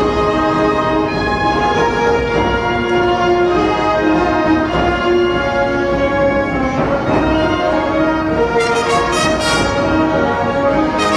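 Orchestral music with brass playing sustained notes; from about 8.5 s, short accented brass notes come in.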